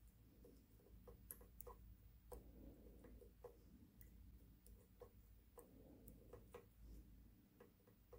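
Faint, irregular clicks and ticks of a lock pick working the pins of an ASSA Twin 6000 high-security lock, roughly one or two a second.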